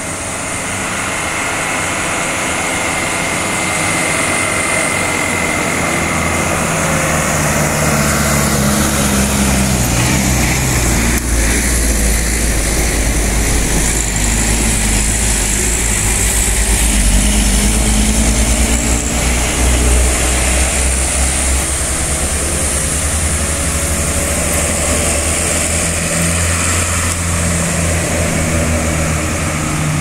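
A tour bus's diesel engine running as the bus comes up the road, passes close about halfway through and pulls away, its engine note shifting in pitch as it goes by.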